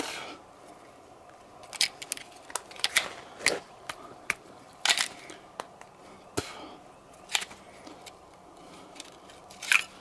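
Mud-fouled semi-automatic pistol being worked by hand: irregular metallic clicks and gritty scrapes as the slide is racked and a stoppage is cleared after a round failed to eject.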